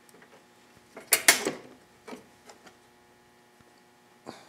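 Pliers clicking and scraping against the metal and plastic of a lawn mower's recoil pull-start while pulling out a loose piece that fell into it: a quick cluster of sharp clicks about a second in, a few light ticks, and another clatter at the end.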